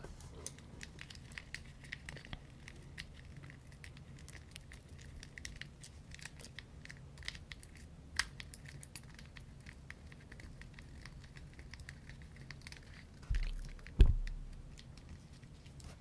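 Fidget cube being fiddled with close to the microphone: many small, quick clicks and ticks. Near the end come a low bump and then a sharp knock, the loudest sound, which dies away over about a second.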